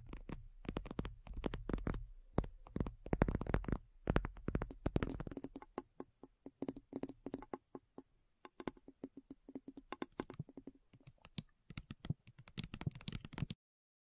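A rapid, irregular run of sharp clicks and taps, thinning out toward the end and stopping abruptly just before it, with a faint high tone repeating evenly through the middle.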